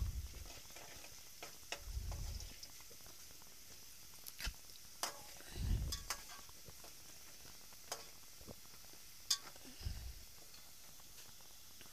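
A metal slotted spoon stirring onions frying in oil in an aluminium pot: scattered clinks and scrapes against the pot over a faint steady sizzle, with a few dull thumps.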